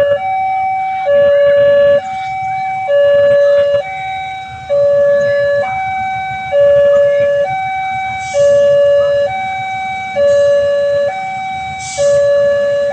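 Railway level-crossing warning siren sounding a loud two-tone alarm, a higher and a lower note alternating evenly, about one high-low cycle every second and a half. It warns road users that a train is coming.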